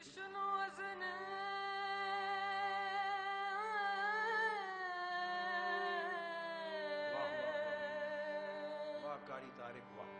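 Background devotional music: a solo voice singing long, wavering held notes over a steady drone, the melody sinking around the middle and breaking into shorter phrases near the end.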